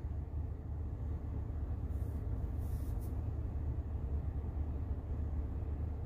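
Steady low rumble of a Tesla's cabin background noise, with a faint brief hiss about two to three seconds in.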